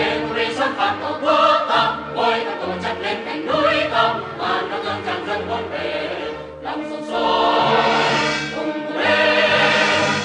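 Music: a choir singing in full voice over instrumental backing with a steady bass line.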